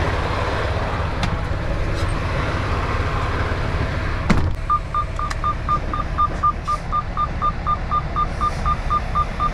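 Freightliner semi truck's diesel engine idling, heard from the cab; a little over four seconds in, a single thump as the cab door is pulled shut, after which the outside noise drops and a dashboard warning beeper starts sounding rapidly, about three or four short beeps a second.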